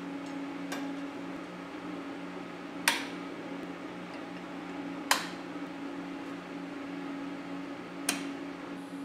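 Three sharp metal clanks a few seconds apart as metal tubing and locking clamps are handled on a steel fixture table, over a steady low hum.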